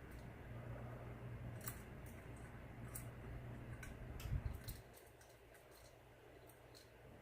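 1990s Hampton Bay Southwind ceiling fan running on the floor: a low, quiet motor hum with scattered light clicks. About five seconds in, the hum drops and becomes quieter.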